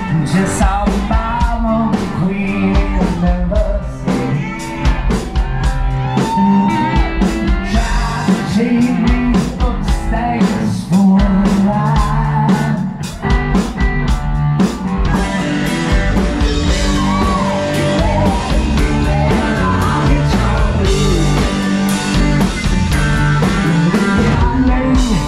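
Live rock band playing through a PA, with a lead singer, electric guitars and a drum kit keeping a steady beat.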